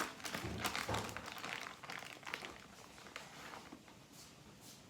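Knife cutting raw stewing beef on a cutting board: a run of light knocks and taps that thins out after about two and a half seconds.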